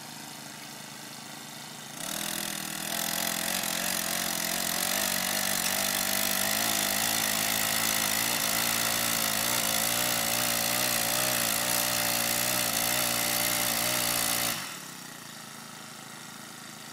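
Small gas tiller's engine running at idle, then revved up about two seconds in and held at high speed, its pitch wavering slightly under load, before dropping back to idle near the end.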